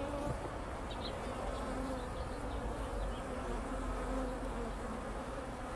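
Many honeybees buzzing around an opened hive: a steady hum with several faint tones that waver in pitch. The colony is defensive enough that the beekeeper won't work it without a suit.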